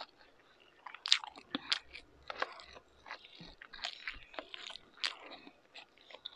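A person chewing crispy fried meat: irregular crunches and crackles that start about a second in and thin out near the end.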